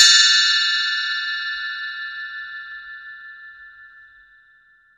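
A single bell-like chime struck once and ringing out with a slight wavering, fading away slowly over about five seconds.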